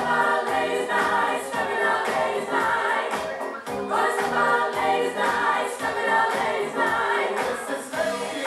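Music with a group of voices singing over a steady beat.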